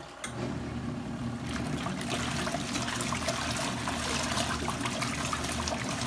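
SUPER DEAL twin-tub portable washing machine running its wash cycle: a steady motor hum under churning, sloshing water as the clothes are agitated in the tub. The sloshing is softer for about the first second, then picks up again and keeps on.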